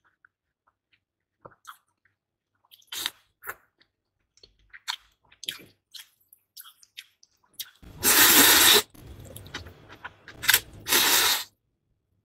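Close-miked eating sounds: small wet mouth clicks and chewing, then about eight seconds in a loud, wet slurp of noodles lasting about a second, and two shorter slurps near the end.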